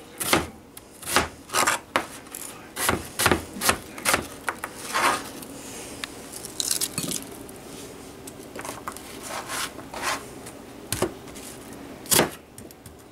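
Chef's knife chopping an onion on a plastic cutting board: irregular sharp knocks of the blade hitting the board, thickest in the first few seconds and again near the end, with a scrape of the knife across the board about halfway through.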